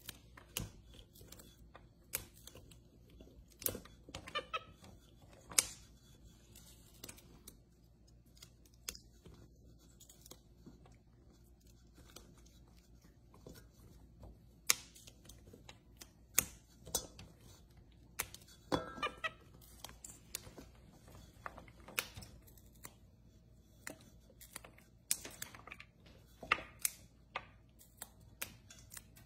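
Fresh green beans being snapped and trimmed by hand over a stainless steel bowl: irregular crisp snaps and clicks, a second or two apart.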